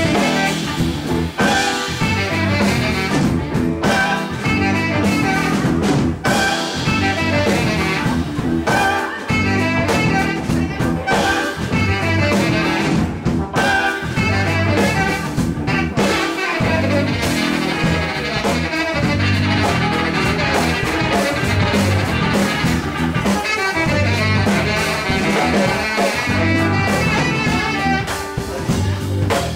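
Live band playing an instrumental jazz-blues number: saxophone over electric guitar and drum kit, with a steady beat.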